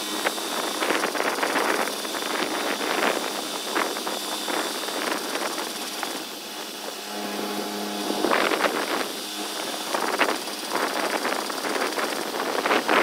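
Diesel engine of a boom truck running steadily to drive its truck-mounted knuckle-boom crane as the crane swings a load up to the roof. A brief pitched hum comes in about seven seconds in.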